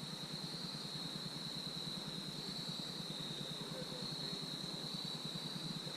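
Insect chorus: one steady, unbroken high-pitched buzz over faint background hiss.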